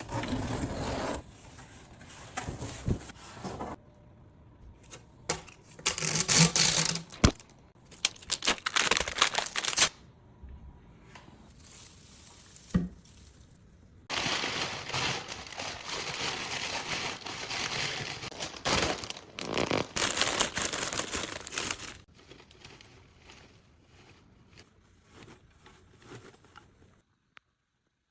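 Packaging being torn open and crumpled by hand while a planter is unboxed: irregular bursts of tearing and crinkling, with a few sharp knocks in between.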